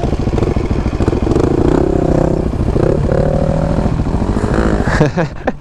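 Husqvarna 701's single-cylinder engine running under way, heard from the bike itself. Near the end the engine revs up and down sharply several times.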